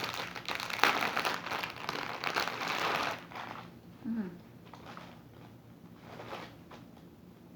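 Packaging being handled and crinkled while an online order is unpacked: dense crinkling for about three seconds, then sparser, quieter rustles.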